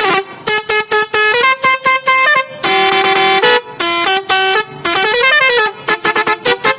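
Bank of yellow trumpet horns mounted on a bicycle's front fork, playing a loud tune in rapid stepping notes, with a couple of sliding notes and one longer held note about three seconds in.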